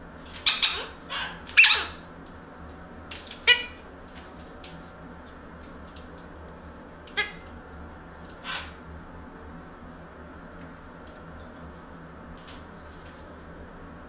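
Blue-crowned conure giving short, squeaky chirps: a quick cluster of four or five in the first few seconds, then two more single ones spaced out past the middle, with a few faint ticks near the end.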